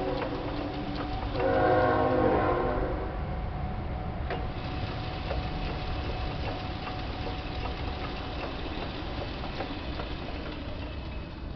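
Logan 10 x 24 metal lathe with its 2 HP three-phase motor running, a steady hum with a faint steady tone and light ticking. About a second in, a louder whine with several pitches sounds for about a second and a half.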